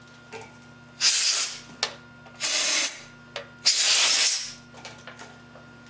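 Three short bursts of spray hissing as the oil is cleaned off a freshly reamed Dunlop brake caliper piston, with a few small clicks between them.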